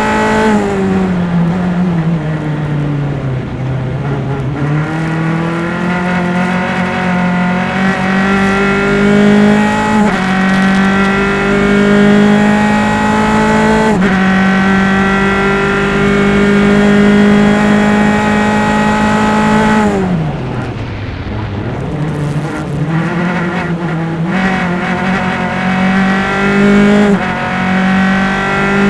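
A single-seater race car's engine, heard close up from engine-mounted microphones on board, running hard on track. Twice, just after the start and again about twenty seconds in, the pitch drops sharply as the car brakes and shifts down. Between those drops the revs climb through stepped upshifts, and they are held steady and high for several seconds on a straight.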